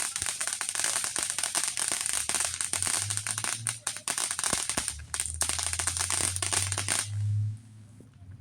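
Aerial fireworks crackling: a dense fizzing of many tiny pops that cuts off suddenly about seven seconds in.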